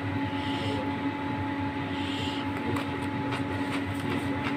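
Steady mechanical hum with a few fixed tones, like a fan or household appliance running, with a few faint light clicks in the second half.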